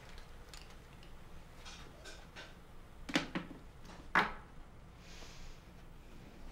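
Light clicks and knocks in a quiet room, with two louder, sharper knocks about a second apart near the middle, then a brief soft hiss.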